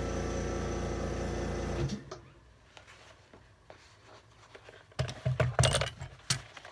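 A workshop machine's electric motor running steadily, then switching off about two seconds in. A few light knocks and clicks follow near the end.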